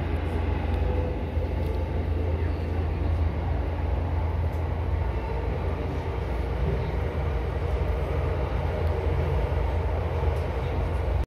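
Tokyo Metro Chiyoda Line train running between stations, heard from inside the passenger car as a steady low rumble.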